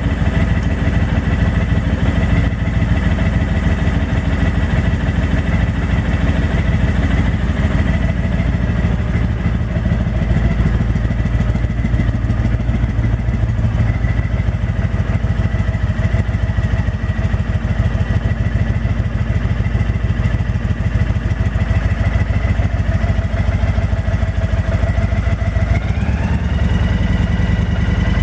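Honda VTX 1300's V-twin engine idling, with a steady high-pitched whistle over the engine beat. About 26 s in, the engine picks up slightly and the whistle rises in pitch with it. The whistle is an unexplained noise that the owner finds very annoying.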